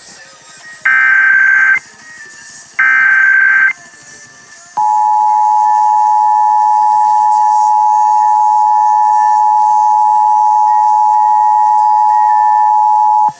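Emergency Alert System signal: the last two of three SAME digital header bursts, each a buzzy data screech about a second long and a second apart, encoding the Required Monthly Test. About five seconds in comes the EAS attention signal, a loud, steady two-tone alert that holds for about eight and a half seconds and then cuts off sharply.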